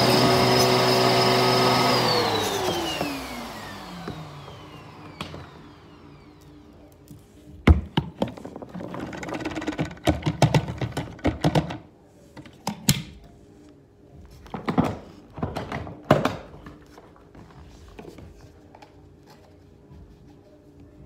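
Bissell vacuum cleaner running, then switched off about two seconds in, its motor whine falling in pitch as it spins down over a few seconds. Later, a string of knocks and short rattling clatters as the dust bin is opened and its load of dust and debris drops onto the hardwood floor.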